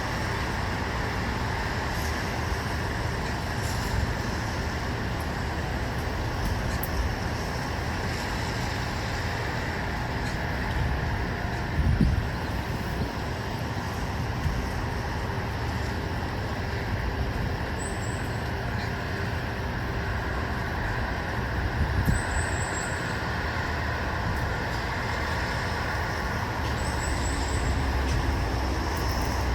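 Steady hum of distant road traffic, with a couple of brief swells as louder vehicles pass, about 12 and 22 seconds in. A few short high chirps come through in the second half.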